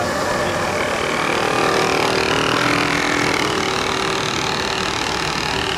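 A small model engine running steadily.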